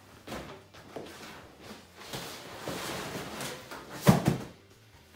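A crib mattress being handled and lowered into a crib: its cover rustles and brushes, then it lands on the crib's spring support with a thump about four seconds in, followed by a smaller thump just after.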